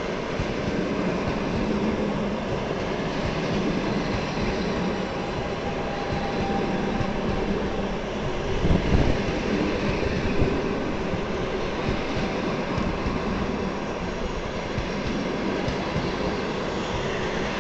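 Passenger train coaches passing through a station at speed: a steady rush of wheels on rails, with a brief louder thump about halfway through.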